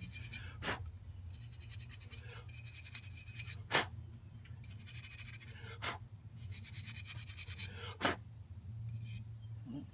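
Brass wire brush scrubbing the metal float bowl of an outboard carburetor to clean off grime: runs of quick scratchy strokes, a second or so each, with a few sharp taps between them.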